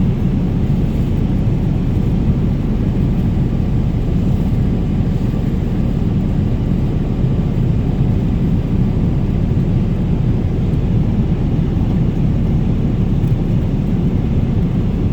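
Steady low rumble of a vehicle in motion, with no change in level.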